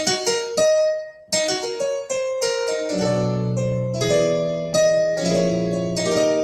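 Digital stage piano played on its 'digital piano' voice: a quick run of single notes, then held chords with a bass line underneath from about halfway.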